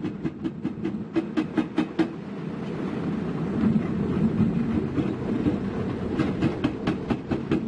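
Heavy tracked earthmoving machine on the move: the diesel engine running under a quick, even clanking of the steel crawler tracks, about five clanks a second. The clanking fades into the engine's heavier drone in the middle and comes back near the end.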